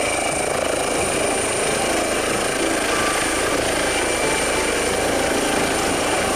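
Red air ambulance helicopter lifting off from the ground and rising into a hover: steady rotor and turbine noise with a thin, steady high-pitched whine over it.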